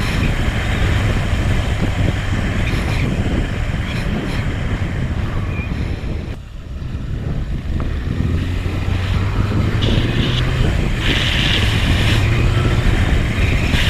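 Motorcycle engine running at steady cruising speed, with wind noise on the microphone, easing off briefly about halfway through.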